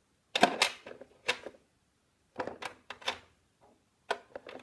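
Small plastic Num Noms toy pieces clicking and clattering as they are handled, in four short bursts.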